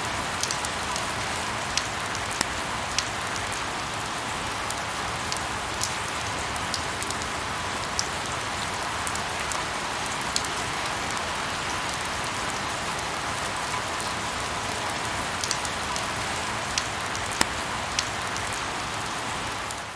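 Light rain falling steadily: a constant soft hiss with scattered individual drops ticking sharply on a surface.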